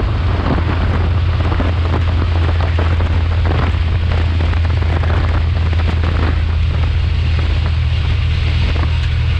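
Race car engine running steadily under load with heavy wind and road noise, a constant low drone with no change in pitch.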